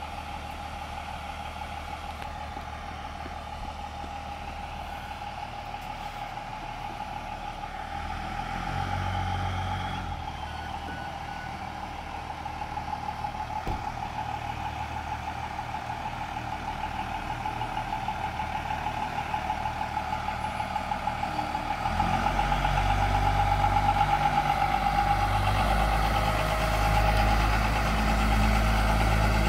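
Dodge Ram–based fire department brush truck running as it pulls out of the station bay. Its engine grows much louder about 22 seconds in, as the truck drives up and past, over a steady electronic beeping tone.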